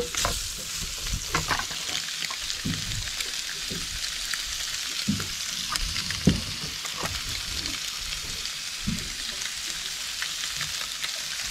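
Nannygai fillets sizzling in butter in a frying pan, a steady hiss, with light scrapes and knocks of a wooden spatula against the pan; one sharper knock about six seconds in.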